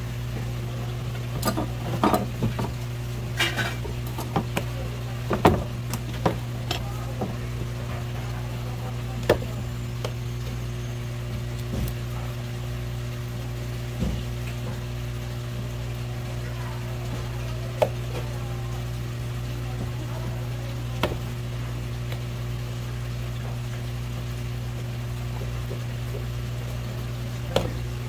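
Knife and dish clicks and knocks on a cutting board during fish preparation, several in the first seven seconds and then a few spaced out, over a steady low machine hum.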